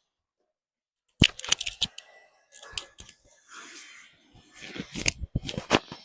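Sharp clicks and crackling rustles in irregular clusters, starting about a second in after a quiet moment.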